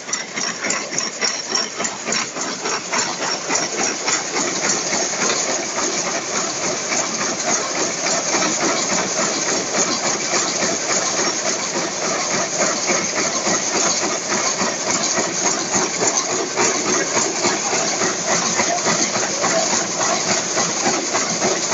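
Shuttleless rapier loom with a dobby head running at speed, weaving cotton grey cloth: a loud, fast, even mechanical clatter with a hissing rattle.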